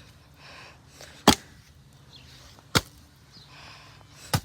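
Three sharp hits about a second and a half apart: a pickaxe-like tool striking a water balloon that does not burst.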